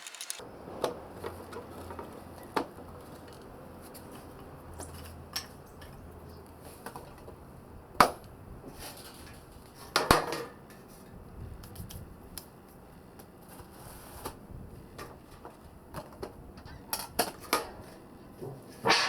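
Steel rods and flat bars of a homemade fire-pit stand clinking and knocking as they are handled. The clicks are scattered, with two louder knocks about eight and ten seconds in and a quick run of clinks near the end.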